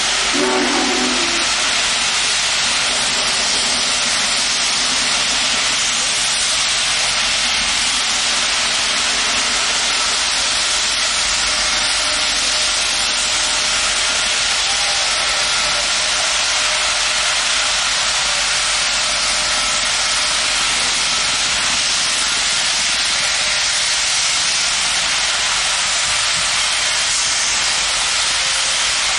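Union Pacific Big Boy No. 4014, a 4-8-8-4 articulated steam locomotive, venting steam with a loud, steady hiss. The tail of its chime whistle cuts off about a second in.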